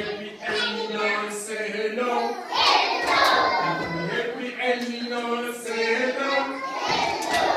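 A group of small children singing together.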